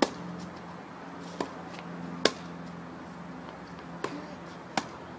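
Tennis ball being struck by rackets and bouncing on a hard court during a rally: five sharp pops about a second apart, the loudest a racket hit at the very start. A steady low hum runs underneath.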